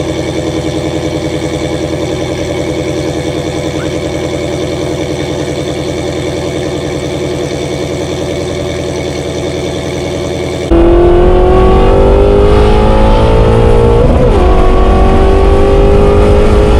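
Shelby GT350's 5.2-litre flat-plane-crank V8, breathing through Kooks headers and a catted competition exhaust, idling steadily with an even, rapid pulse. About eleven seconds in it cuts abruptly to the engine heard from inside the car, louder, pulling hard with the revs climbing, a quick upshift about three seconds later, then climbing again.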